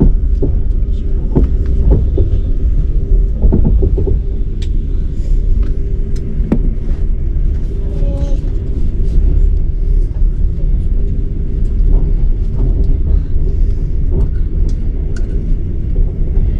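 Passenger train running: a steady low rumble of the moving carriage with scattered knocks and clicks from the wheels and car body.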